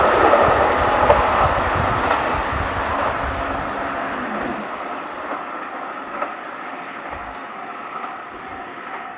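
A train running past and moving away, its sound fading steadily. The high end dies away about halfway through, leaving a fainter low running sound.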